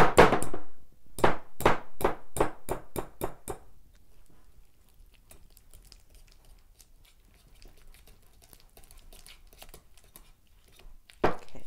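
Wire whisk beating stiff, lumpy cream cheese in a glass bowl. The wires knock against the glass in quick strokes, about three a second, for the first few seconds, then the whisking goes on more softly. One louder knock comes near the end.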